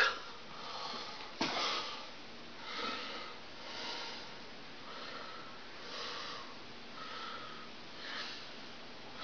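A person breathing heavily and softly close to the microphone, about one breath a second. A single click comes about a second and a half in.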